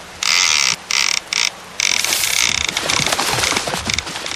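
Fishing reel drag buzzing in repeated surges as a hooked fish pulls line against the bent rod, each run lasting about half a second with short breaks between.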